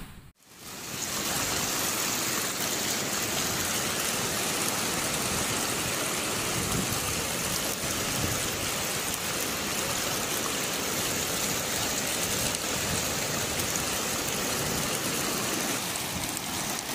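Steady, even rushing of water noise, after a brief dropout to silence right at the start.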